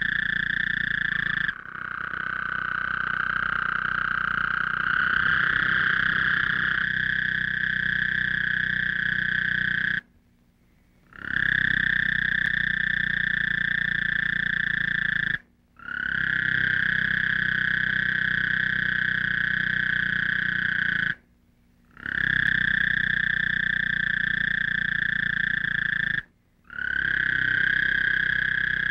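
Night chorus of trilling frogs, a steady high-pitched trill over a lower hum. It cuts off abruptly to near silence four times, each for under a second, and comes straight back.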